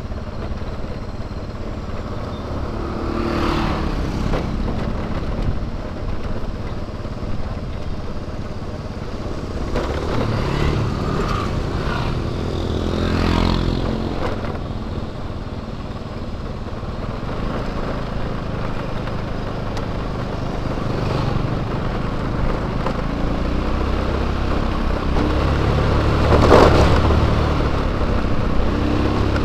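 Small motorbike's engine running under way, with wind and road noise. The engine note swells several times and is loudest near the end.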